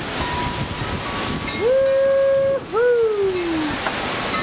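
Heavy rain pouring in gusting wind during a monsoon thunderstorm. About halfway through, a loud whistling howl rises to a held note for about a second, then a second one falls steadily in pitch.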